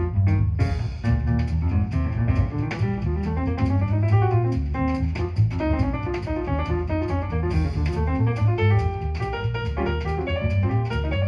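Instrumental jazz break: a quick run of guitar notes over double bass and drum kit, with no singing.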